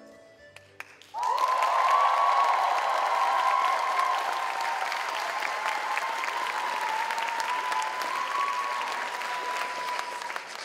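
Audience applauding and cheering, breaking out suddenly about a second in, with a long high "woo" held over the clapping.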